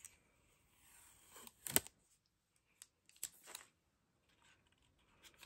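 Faint handling sounds as the instruction label is peeled off the underside of a wireless mouse and set down: a few short clicks and soft rustles.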